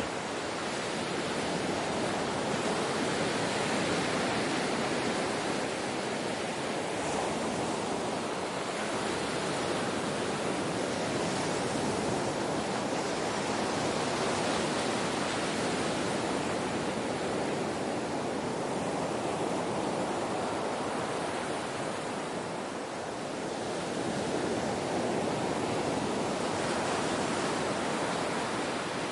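Ocean surf: a continuous wash of waves breaking and rushing, swelling and easing slowly in level with no distinct single crashes.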